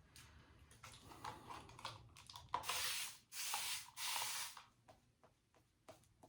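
Safety razor strokes scraping through lathered stubble: faint scratching at first, then three louder strokes in quick succession around the middle.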